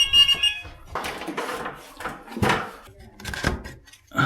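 Fire alarm sounder's steady multi-tone sound, cutting off just under a second in, followed by a series of irregular knocks and thumps.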